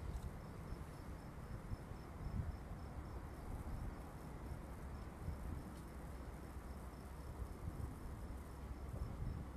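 A cricket chirping steadily, a thin high pulse repeating about two to three times a second, over a low rumble.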